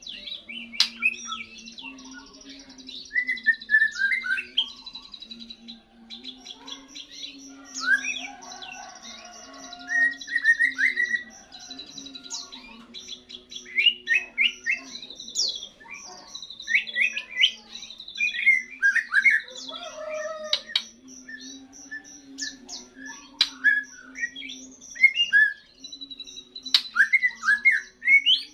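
A young white-rumped shama sings its first song after its moult: a varied run of quick rising and falling whistles, chirps and harsher notes, with short pauses between phrases. A steady low hum runs underneath.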